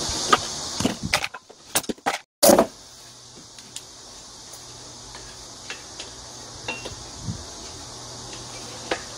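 Small metal clicks and clinks of hand tools and engine parts as the exhaust muffler is taken off a Shindaiwa EB803 engine blower to inspect the piston and cylinder. A steady high hiss runs under the first second, the sound drops out briefly, and a loud knock comes about two and a half seconds in. After that there is a low steady hum with a few scattered small clicks.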